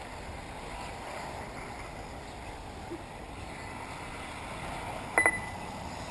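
Steady background noise of RC buggies running on a dirt track, with some wind on the microphone. About five seconds in, two short high beeps come in quick succession.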